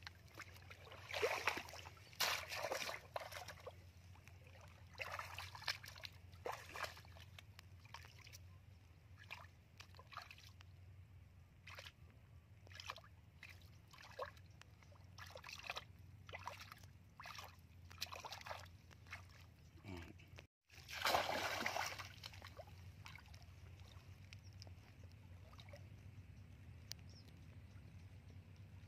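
Water splashing and sloshing in a shallow muddy stream as a person wades and works a bamboo plunge basket, hands groping in the water. The splashes come irregularly, loudest in the first few seconds and again about two-thirds of the way through.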